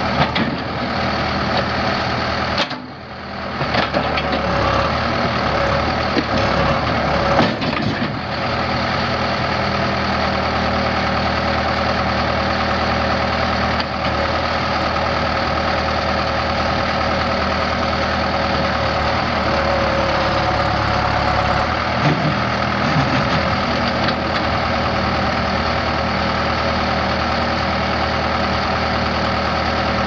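Case 580 Super L backhoe's four-cylinder diesel engine running steadily, briefly quieter about three seconds in.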